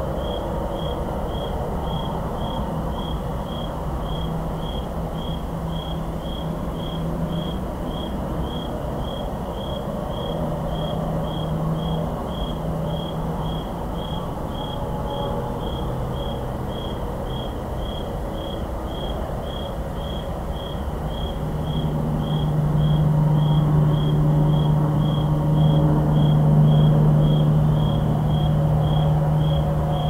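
A cricket chirping steadily, about two short high chirps a second, over the low hum of highway traffic that grows louder for several seconds in the last third.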